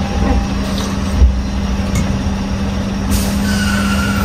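Scania V8 truck engine running with a steady low hum, a thump just over a second in, and a short sharp air-brake hiss about three seconds in.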